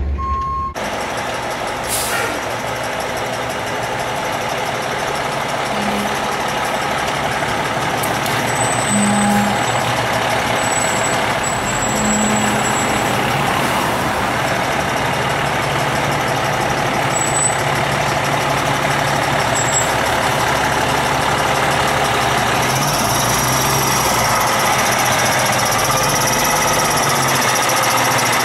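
A 2019 Pierce Arrow XT tower ladder fire truck's diesel engine runs loud and steady as the truck pulls out of the station, with a few short tones and air-brake sounds along the way. A steady siren tone cuts off abruptly in the first second.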